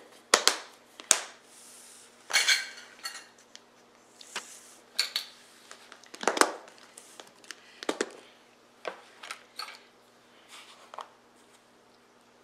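Kitchen utensils being handled: a measuring spoon and a plastic storage container and lid clinking and knocking in a dozen or so sharp clatters, a few of them longer scrapes. Under them a dishwasher hums faintly and steadily.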